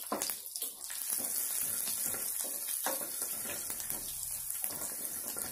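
Chopped garlic sizzling and bubbling in hot butter in a kadhai. The frying gets louder about a second in, then runs steadily with small crackles.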